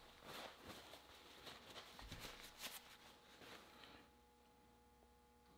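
Near silence: room tone with faint small ticks and rustles of handling for the first few seconds, then only a faint steady hum.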